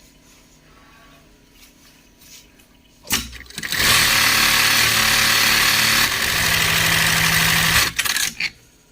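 Heavy-duty industrial sewing machine starting about three seconds in and stitching at speed with a fast, even rattle for about four seconds, then stopping, followed by two short bursts of stitching.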